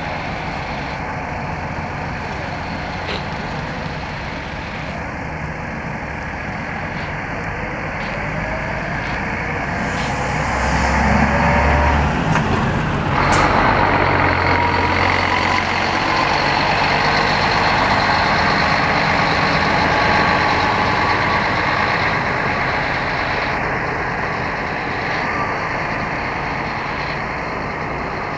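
Scania K124IB double-decker coach's inline-six diesel pulling away, the engine note rising as it accelerates about ten seconds in, with a short sharp burst of air from the air system as it passes close by. It then runs on steadily and fades as the coach drives off.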